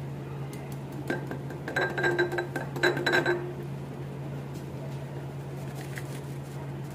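Glassware and a plastic shaker bottle clinking and rattling in quick succession, with a ringing glass tone, starting about a second in and lasting about two and a half seconds.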